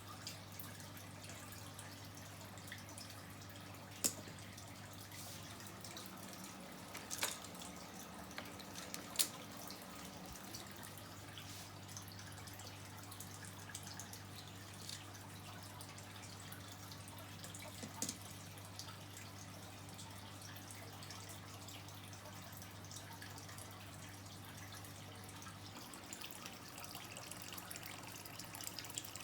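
Faint water dripping and trickling, with a few sharp drips standing out, over a steady low hum that cuts off near the end.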